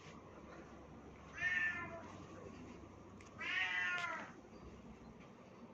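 Domestic cat meowing twice, about a second and a half in and again near the middle, the second meow longer and falling in pitch at its end.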